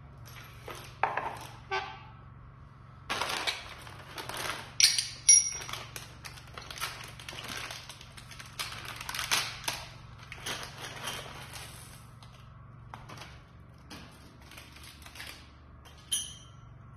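Hand-handling noises of small metal conveyor parts: a run of clicks, knocks and rustling, with a few short ringing metal clinks, the sharpest near the end as metal brackets are set down on the tiled floor. A steady low hum runs underneath.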